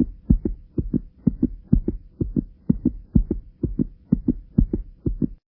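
Heartbeat sound effect: paired lub-dub thumps about twice a second over a faint steady hum, cutting off shortly before the end.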